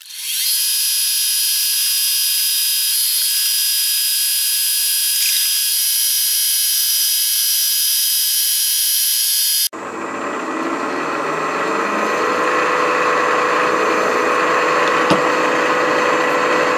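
Milling machine spindle running while drilling holes into a metal block with a number 19 tap drill: a steady, high-pitched machine whine. About ten seconds in it cuts abruptly to a fuller, noisier running sound.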